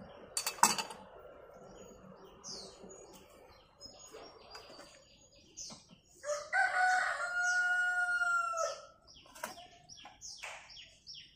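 Rooster crowing once, one long call of about two seconds starting around six and a half seconds in. Near the start a sharp clink, and scattered short chirps of small birds.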